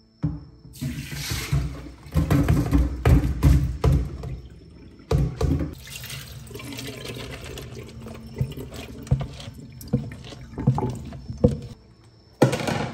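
Soaked glutinous rice and its soaking water poured from a plastic basin into a stainless-steel colander in a steel sink, the water splashing and draining, with knocks and rattles of the rice and basin against the metal. A short, louder rush of water comes near the end.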